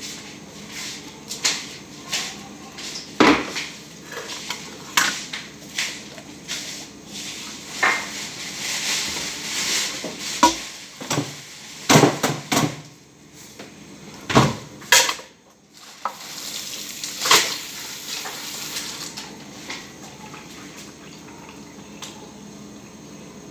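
Irregular clinks, knocks and clatters of dishes and cutlery being handled, the loudest few in the middle.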